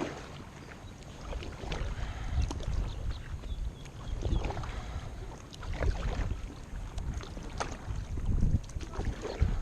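Kayak paddle strokes splashing and dripping in lake water, under gusting wind rumbling on the microphone.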